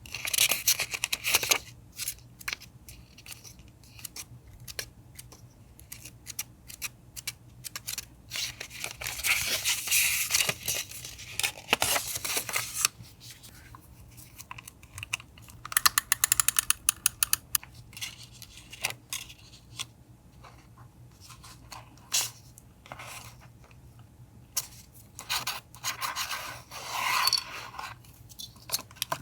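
Paper collage and journaling sounds: scissors snipping and paper being handled, rubbed and torn. The sounds come as many short snips and crinkles, with a few longer rustling, scraping passes.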